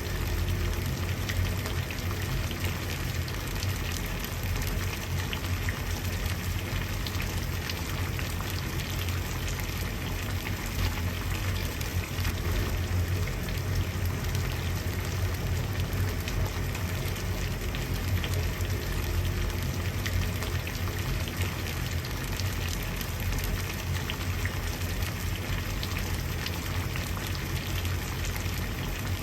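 Water at a rolling boil in a pot, a dense steady bubbling with fine crackles over a low rumble.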